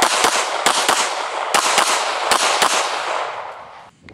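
Handgun fired rapidly: about ten shots in quick, uneven strings over the first three seconds, each with a trailing echo. The echo dies away about a second after the last shot.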